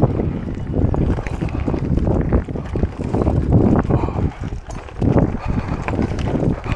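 Wind buffeting the microphone over the clatter and crunch of a gravel bike riding a rough, rocky dirt track, with many small knocks and rattles.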